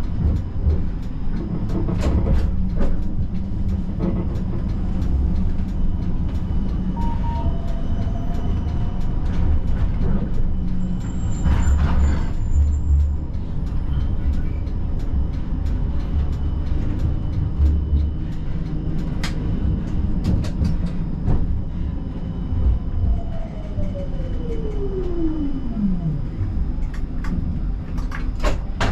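Siemens Combino tram running on rails, heard from the cab: a steady rumble with repeated clicks and knocks of the wheels over rail joints and points. A brief thin high-pitched squeal comes about midway, and near the end a whine falls steadily in pitch over a few seconds.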